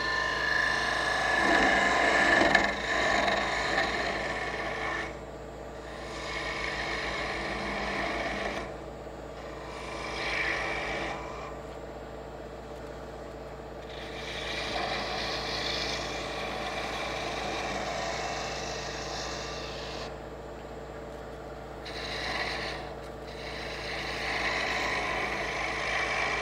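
Wood lathe spinning a small wooden knob while a hand-held turning tool cuts its profile, the shavings peeling off with a scraping hiss. The cuts come in a series of passes a few seconds long with short pauses between them, the loudest in the first few seconds, over the lathe's steady motor hum.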